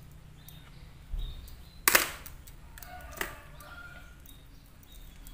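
Side cutters and a roll of insulating tape being handled on a desk: a dull knock about a second in, then one sharp click about two seconds in, the loudest sound, and a smaller click a second later.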